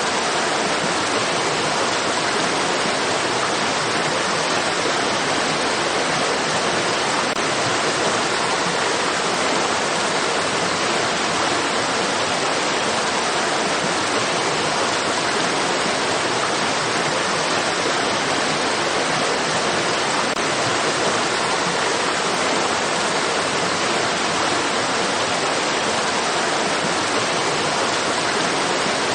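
Running water of a stream, a steady, even rushing that does not change.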